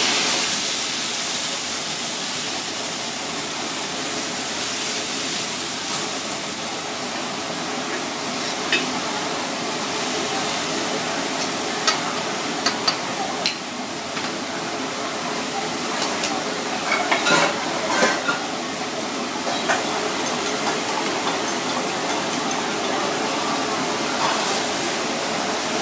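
Bitter melon and tofu sizzling in a hot wok, stirred with a metal ladle that clinks and scrapes against the wok now and then, with a run of clinks about two thirds of the way in.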